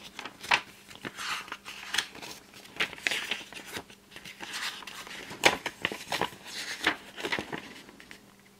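Pages of a thin stapled paper rulebook being leafed through and handled: an irregular run of rustles and crisp page snaps, the sharpest one about five and a half seconds in.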